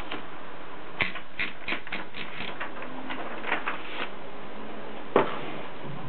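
Mercedes 3 manual typewriter clacking: a run of uneven sharp clacks, then one much louder clack about five seconds in.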